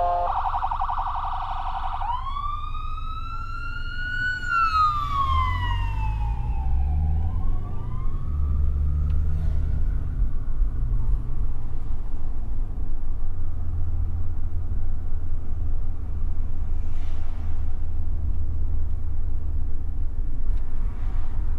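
Emergency vehicle siren: a fast warbling yelp in the first two seconds changes to a wail that rises and falls once in pitch, then grows faint after about seven seconds. A steady low rumble of engine and road noise, stronger from about five seconds in, runs under it.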